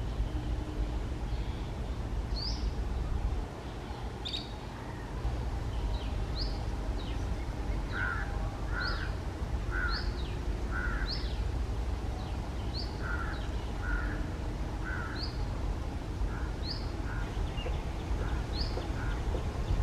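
Bird calls: a series of short high notes that drop in pitch, about one a second, joined about eight seconds in by lower short notes that come in quick pairs, over a steady low rumble.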